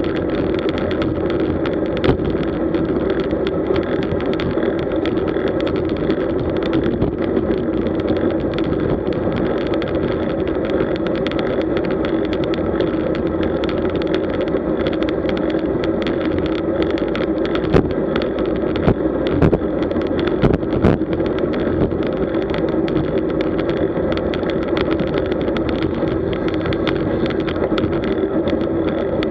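Steady rush of wind and tyre-on-road noise picked up by a camera mounted on a road bike riding at speed in a group, with a few short knocks from bumps a little after halfway.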